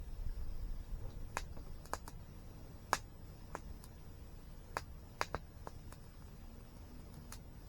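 Campfire wood crackling: a dozen or so sharp, irregular pops, the loudest about three seconds in and just after five seconds, over a steady low rumble.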